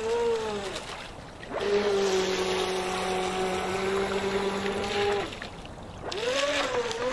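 Brushless electric motor of a 3S RC speed boat whining as it runs on the water. The pitch sags and the sound fades about a second in, holds a steady pitch for about three and a half seconds, then fades again before rising back near the end.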